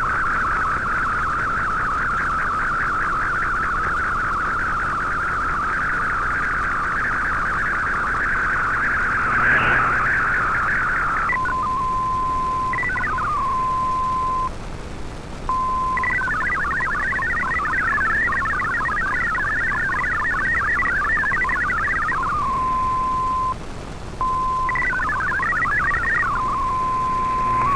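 MFSK digital data tones from a shortwave broadcast, heard off an AM receiver. For about eleven seconds a picture transmission warbles, then it gives way to a steady single tone with quick falling sweeps and a stretch of rapidly hopping MFSK64 text tones. The tone stops briefly twice.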